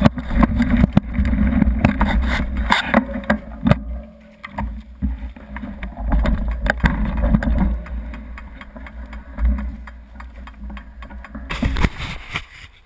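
Ride noise from a camera-mounted descent on a gravel forest road: wind rumbling on the microphone, with tyre and frame rattles and knocks over the rough surface. Louder for the first few seconds, quieter through the middle, with a short burst of rattling near the end.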